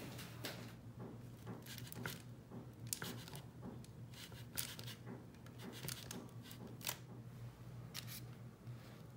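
Aluminium foil and parchment paper crinkling in short, irregular rustles as hands grip and shift a foil-wrapped cake pan, over a faint steady low hum.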